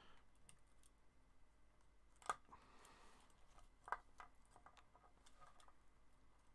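Near silence with two small sharp clicks, about two and four seconds in, and a few fainter ticks: hands handling wires and potentiometers in an electric guitar's control cavity.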